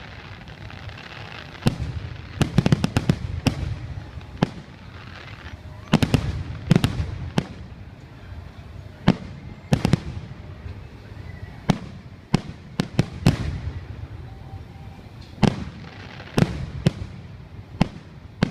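Fireworks exploding overhead: irregular sharp booms, some in quick clusters of several bangs, each followed by a low rumble.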